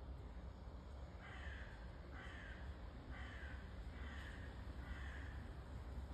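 A crow cawing off-screen: five harsh caws about a second apart, each dropping slightly in pitch.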